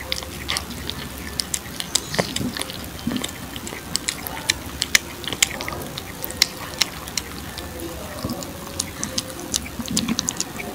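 A domestic cat eating soft, pasty wet cat food close to the microphone: quick, irregular wet smacking and lapping clicks, several a second.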